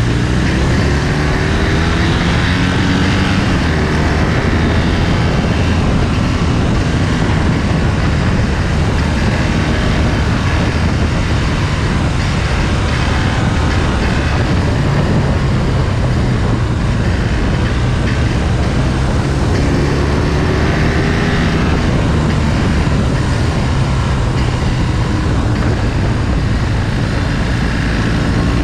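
Motorcycle engine running at road speed through a series of bends, its note rising as it accelerates near the start and again about two-thirds of the way through, over a steady rush of wind noise.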